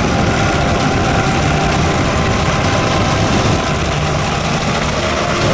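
Engine of a heavy military vehicle running steadily.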